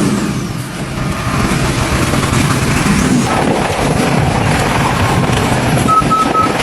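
Diesel engines of heavy earth-moving machinery running under load, with a run of short high beeps near the end.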